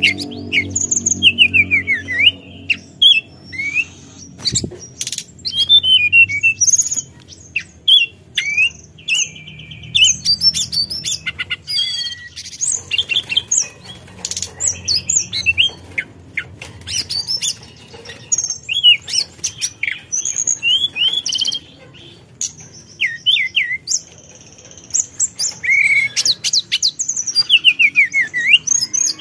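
Hill blue flycatcher (tledekan gunung) singing a long, varied song of quick sweeping whistles, trills and chattering notes, delivered in rapid phrases with short gaps.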